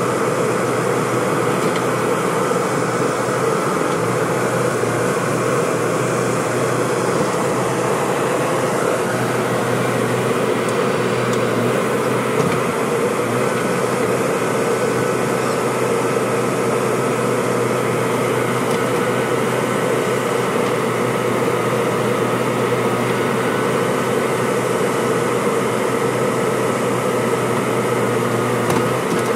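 JCB 3DX backhoe loader's diesel engine running steadily at a constant pitch while the backhoe arm works.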